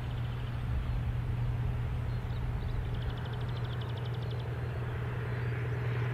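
Distant narrow-gauge locomotive running as it approaches, a steady low drone. About three seconds in, a high, rapid trill lasts a second and a half.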